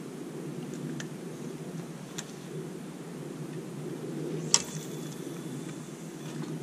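Spinning rod and reel being cast and worked: a few faint ticks and one sharp click from the reel a little past halfway, over a steady low background rumble.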